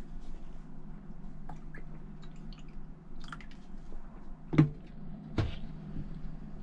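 Beer being poured from a tall aluminium crowler can into a glass. About four and a half seconds in, the can is set down on a wooden board with a sharp knock, followed by a second, duller thud.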